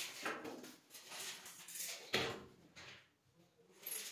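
Handling noise on a board wardrobe carcass: a series of short knocks and scrapes, the sharpest about two seconds in, then a brief quieter stretch.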